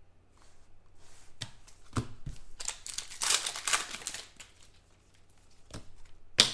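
Trading cards being handled and sorted by hand: a few light taps, a stretch of cards rustling and sliding against each other about three seconds in, and a sharp click near the end.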